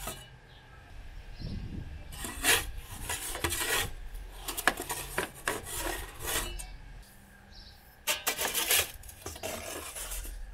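Metal pizza peels scraping and grating across the floor of a wood-fired brick oven as the pizza is turned and then lifted out, with repeated short scrapes that are loudest about eight seconds in.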